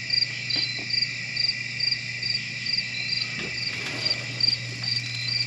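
Crickets chirping in an even rhythm, about two chirps a second, over a continuous high insect trill and a low steady hum.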